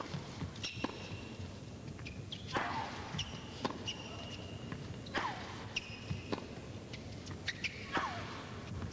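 A tennis rally on an indoor court: the ball is struck back and forth as sharp racquet pops, with short high shoe squeaks on the court surface. Three short cries falling in pitch come from a player on strokes, about two and a half seconds apart.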